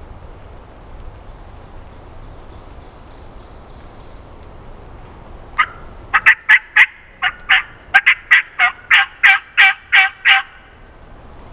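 Steady rain hiss, then about halfway in a rapid run of about fourteen loud turkey yelps, roughly three a second, each note dropping in pitch at its end, stopping about a second before the end.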